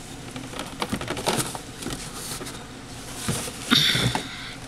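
Rummaging in a cardboard shipping box among boxed items: light taps, clicks and rustles of cardboard and packaging. Near the end a louder scraping rustle as a small box is pulled out.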